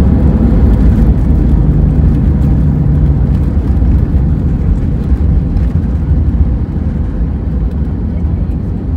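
Cabin noise in an Airbus A320ceo rolling on the runway after landing: a loud, steady low rumble of engines and wheels, easing off over the last few seconds as the plane slows.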